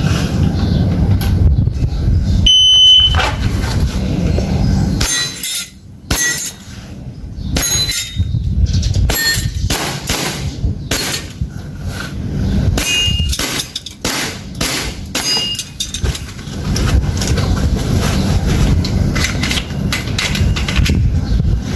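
Airsoft pistol shots with BBs striking steel target plates, each hit a sharp clang that rings briefly at its own pitch. One hit comes early, then a fast string of hits runs for about ten seconds. A steady low rumble lies under it all.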